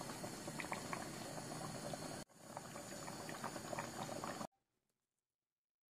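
Rice and water boiling hard in a wide stainless steel pan, a steady bubbling with small scattered pops. The sound drops out for an instant about two seconds in, resumes, and cuts off abruptly about four and a half seconds in.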